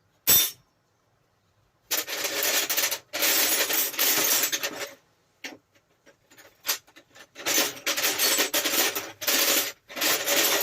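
Metal clinking and scraping of a steel spanner working a bolt on a bench grinder's cover, in several long rattling stretches after a sharp click.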